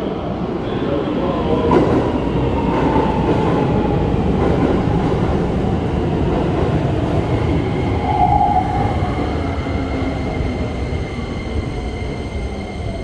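Red Keikyu 1000 series electric train running into the station along the platform and braking to a stop, with wheel and motor rumble and a whine that slowly falls in pitch as it slows.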